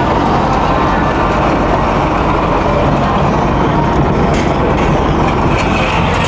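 Tractor engine running steadily under load, heard from inside the moving tractor's cab, with a couple of faint clicks near the end.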